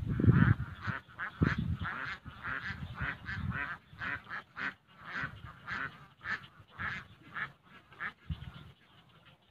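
Waterfowl calling: a run of short, nasal quacks and honks, two or three a second, fading toward the end. A low rumble near the start.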